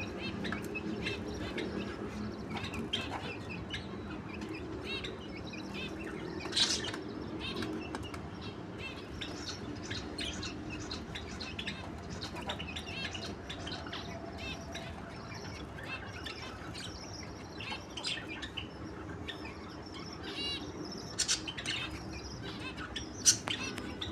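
A pair of lovebirds chirping: many short, high chirps scattered throughout, with a few louder sharp sounds about six and a half seconds in and twice near the end.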